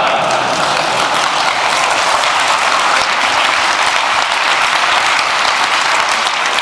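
An audience applauding, a dense, steady clapping that holds at one level throughout.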